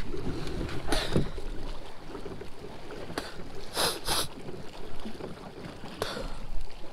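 Handling noise from a baitcasting rod and reel in a kayak: several sharp clicks and knocks, two of them close together near the middle, over light wind and water.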